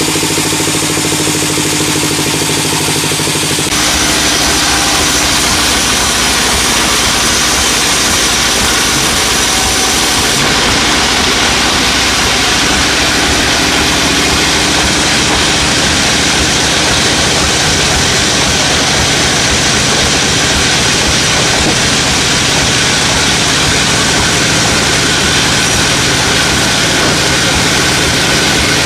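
Sawmill machinery running: an engine idles steadily, then after a sudden change about four seconds in, a louder, noisier machine sound carries on without a break.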